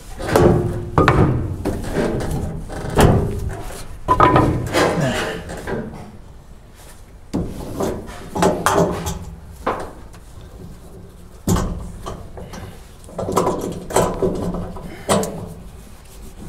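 A cargo ratchet strap being taken down from a truck cab, its metal hook and ratchet buckle clunking and rattling against the sheet-metal cab in an irregular series of separate knocks.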